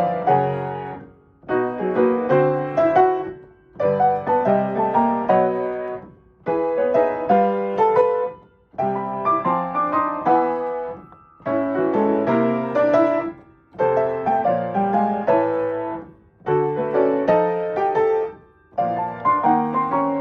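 Solo piano playing a short jazz lick over and over, about nine phrases of roughly two seconds each with brief pauses between. Each phrase is the same lick moved to a new key, a twelve-key transposition drill.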